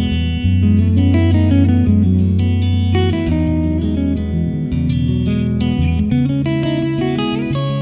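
Instrumental background music led by plucked guitar over a sustained bass line, at a steady level.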